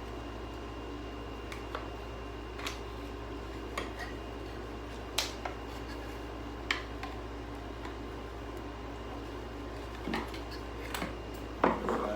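Scattered light clicks and knocks of vacuum cleaner parts being handled and taken apart over a steady background hum, with a cluster of louder knocks near the end.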